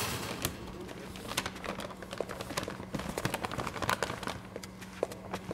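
Footsteps on a hard floor: a string of light, irregular clicks over a low steady hum.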